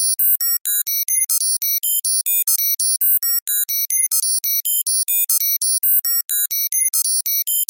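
Synthesized computer 'data processing' beeps: a fast, even run of short high electronic tones jumping between pitches, about six a second, repeating the same pattern every few seconds.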